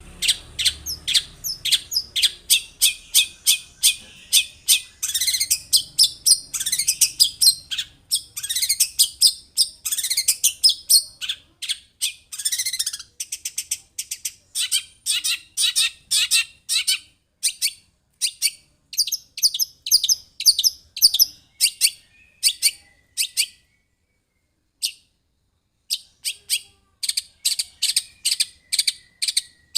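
Long-tailed shrike (cendet) singing in a steady stream of rapid, sharp high chirps, in fast runs, with some downward-sliding notes. There is a short pause a few seconds before the end.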